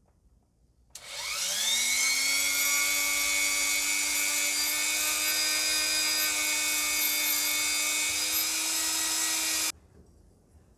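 A small electric power tool's motor starts about a second in, spins up in a rising whine, runs at a steady high speed for about eight seconds, then is switched off and stops abruptly.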